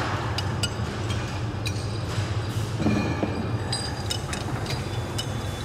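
Hand file rasping over an aluminium brake shoe casting held on a steel block, with several sharp, ringing metal clinks, over a steady low hum.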